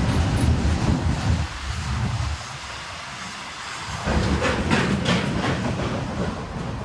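Goods train passing, a low rumble of wagons with wheels clattering over rail joints; the clatter sharpens about four seconds in.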